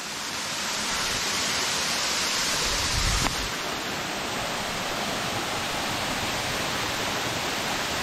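Steady rushing of a waterfall. About three seconds in there is a brief low thud, and after it the hiss is a little softer.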